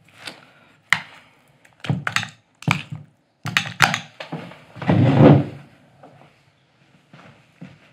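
Spoons and ceramic cereal bowls clinking and knocking on a wooden table as breakfast dishes are handled and gathered, a handful of separate sharp knocks, then a longer, louder clatter about five seconds in as someone gets up from the table.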